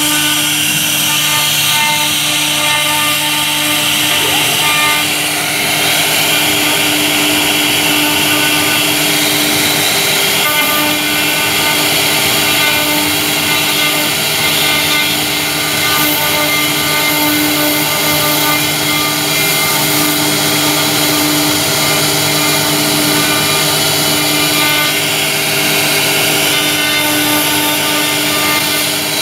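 CNC router spindle running at steady speed while a V-bit carves into a wooden board. It gives an even whine made of several held tones over a constant cutting hiss.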